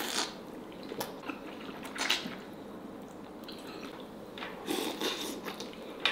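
Wet eating sounds of a person biting and chewing boiled black chicken dipped in a runny sauce. There are a few short squishy, slurping mouth noises, with a cluster of them near the end.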